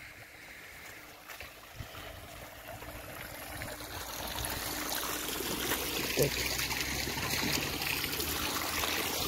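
Garden fountain jets splashing into a water basin: a steady trickling rush of water that grows louder over the first few seconds, then holds.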